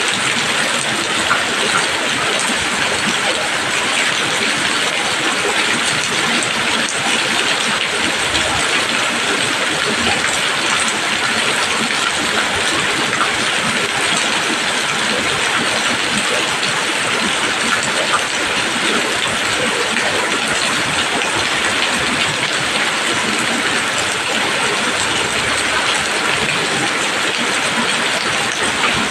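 Steady rain falling on leaves: an even, dense hiss of many drops that keeps the same level throughout.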